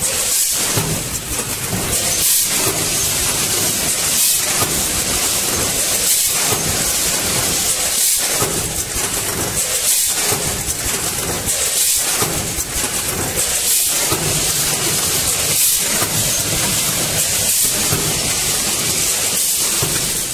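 Ten-head weighing and packing machine running, bagging fish bait: a steady, loud hissing mechanical noise that dips and swells in a regular cycle about every two seconds.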